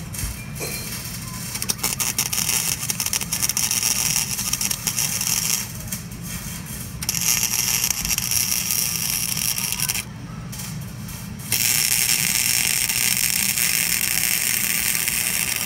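Electric arc welder crackling and hissing as it welds steel tube, in three stretches of a few seconds each with short breaks between. A steady low hum runs underneath.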